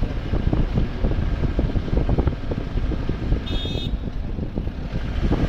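Car driving on a road, its engine and road noise mixed with wind buffeting the microphone; a brief high beep sounds about three and a half seconds in.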